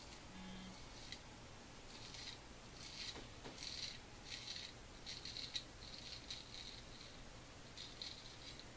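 Billy T. Titan straight razor scraping through shaving lather and beard stubble in a series of short, faint, raspy strokes, about a dozen of them at an uneven pace.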